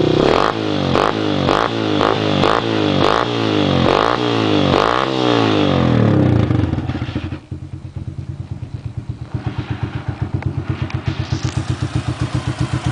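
Sundown Max SED motorcycle's single-cylinder engine through a Roncar aluminium aftermarket exhaust, revved in quick blips about twice a second. It then settles to a quieter idle and is held at a steady higher speed near the end.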